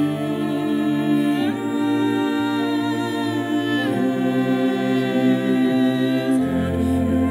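Unaccompanied choir singing slow, sustained chords, moving to a new chord about every two to three seconds.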